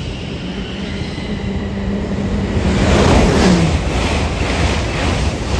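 A train passing through the station at speed. A rushing noise swells to a peak about three seconds in, and a steady hum drops in pitch as the train goes by. The carriages then rush past in a regular beat.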